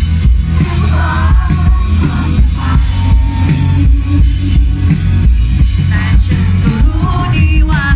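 Rock band playing live through a PA: steady heavy bass and drum kit under a male lead vocal that comes in with sung phrases about a second in and again near the end.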